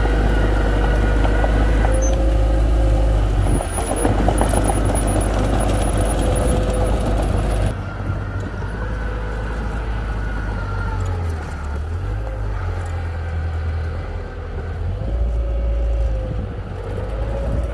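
Diesel engine of heavy earthmoving equipment running steadily, a low rumble with a faint whine that drifts up and down in pitch. The sound changes abruptly about eight seconds in.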